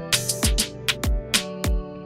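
Background music with a steady beat of deep, pitch-dropping kick drums and sharp percussion hits over held notes.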